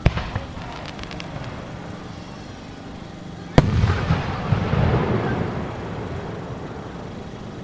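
Aerial firework shells bursting: a sharp bang right at the start followed by a few quick crackles, then a louder single boom about three and a half seconds in that rumbles and echoes away over the next few seconds.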